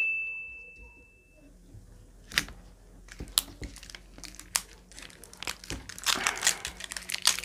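Plastic mustard-oil bottles being twisted open by hand, with crackling and crinkling of the caps and their seals. Scattered clicks start a couple of seconds in and grow busier toward the end.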